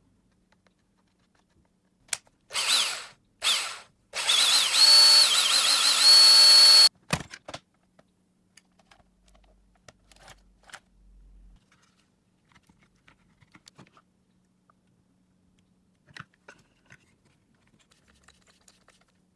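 Cordless power drill's motor run on a Snap-on battery: two short trigger pulls, then a longer run of about three seconds whose whine rises in pitch, wavers, then holds steady and cuts off sharply. A few light clicks follow.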